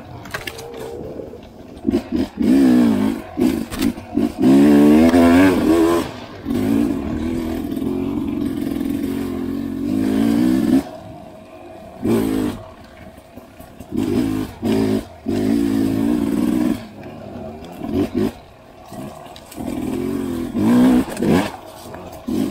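Dirt bike engine revving in repeated bursts, its pitch rising and falling as the throttle is opened and shut, with short quieter gaps between.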